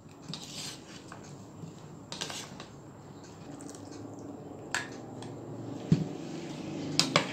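Chickpea and potato chaat being stirred with a plastic spoon in a bowl, a soft wet squishing, with tamarind pulp poured in and a few light knocks against the bowl.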